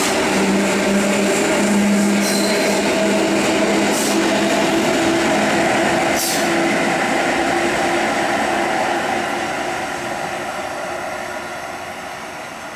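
PolRegio EN57 electric multiple unit rolling out past the platform: a steady motor hum over wheel-on-rail noise, with a few sharp clicks. It fades steadily as the train moves away from about nine seconds in.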